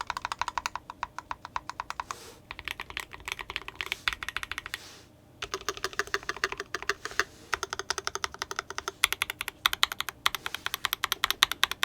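Fast typing on an IDOBAO ID87 V2 mechanical keyboard with fully lubricated Akko POM Silver linear switches and CMK keycaps: rapid key clacks in bursts, with a short pause about five seconds in.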